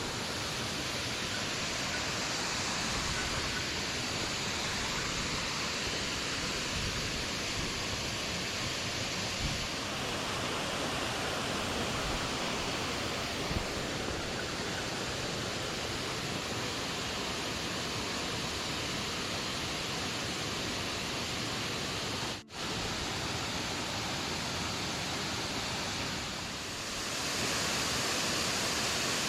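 Mountain stream water rushing: a steady hiss of running water that cuts out for an instant about three-quarters of the way through and grows a little louder near the end.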